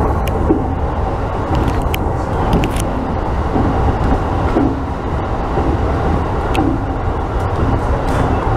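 Electric commuter train running at speed, heard from inside the front car: a steady rumble of wheels on rail with a few sharp clicks.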